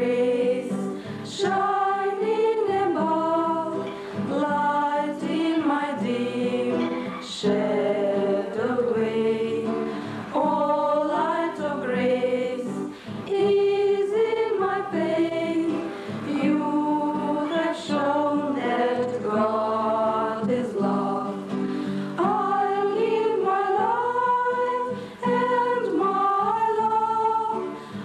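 A small group led by women's voices singing a religious song in English, several voices together with melody held on long notes.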